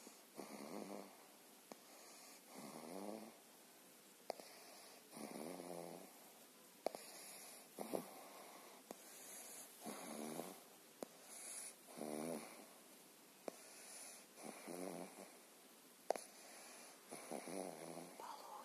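Pug snoring in its sleep: a rasping, pitched snore on each breath, about every two and a half seconds, with a few short sharp clicks between breaths.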